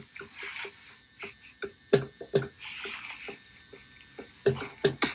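Scattered sharp taps and knocks at uneven intervals, with a couple of soft rustling bursts between them.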